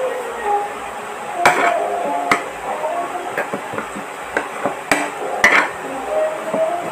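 Metal spoon and fork knocking and clinking against a plate while eating, about half a dozen sharp knocks with the loudest about a second and a half in and near the end.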